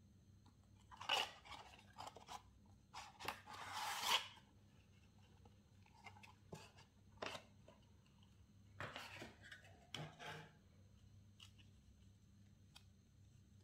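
Hands handling and opening a cardboard watch box: a string of short rubs, scrapes and clicks, the longest a scraping rub about three to four seconds in, then sparser ones until about ten seconds in.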